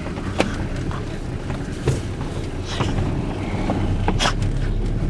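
Car engine and road noise heard from inside the cabin as the vehicle drives slowly, with a few short knocks and clicks over the steady rumble.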